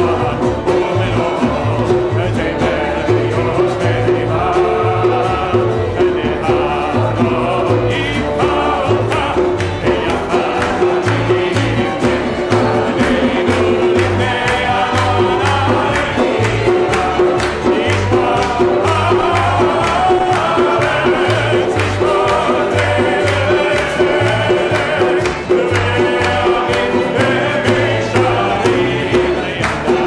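Group of voices singing a Hebrew psalm melody together, with acoustic guitar and a hand drum beating a steady rhythm. Hand clapping joins near the end.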